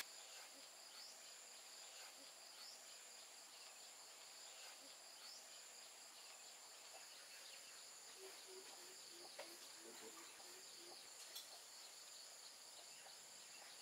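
Near silence with a faint, steady high-pitched insect chorus such as crickets, a few soft clicks, and a short run of quiet low notes about eight seconds in.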